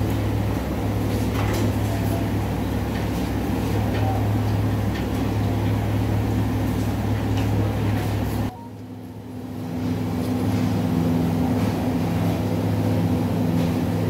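Restaurant kitchen background: a steady low machine hum with faint scattered clicks and clatter. The hum breaks off sharply about eight and a half seconds in, then returns with a slightly different pitch.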